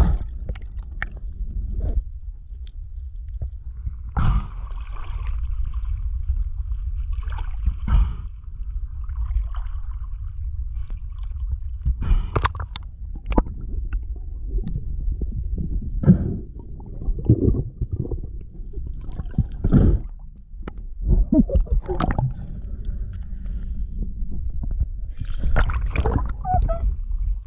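Underwater sound heard through a GoPro: a steady, muffled low rumble of water with scattered knocks and crackles. Near the end there is a rush of bubbles and splashing as the free diver surfaces.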